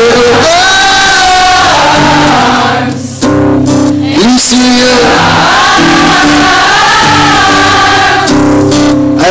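Live rock band playing with a male lead singer holding sung notes over guitar and drums. The sound is loud and distorted, as picked up by a phone in the crowd, with a brief dip in level about three seconds in.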